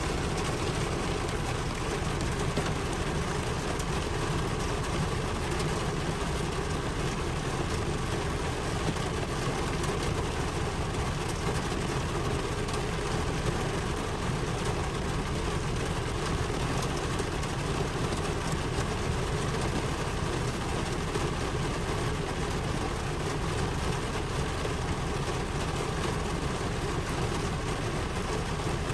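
Steady rain, an even, unbroken hiss with no breaks or thunder.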